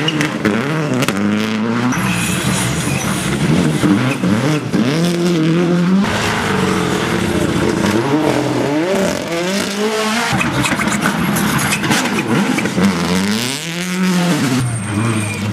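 World Rally Car's turbocharged four-cylinder engine being driven hard on a stage. The revs climb and drop repeatedly through gear changes and braking, with sharp cracks here and there.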